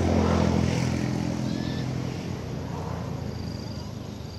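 A motor vehicle passing by: a steady engine drone, loudest about half a second in and then slowly fading away.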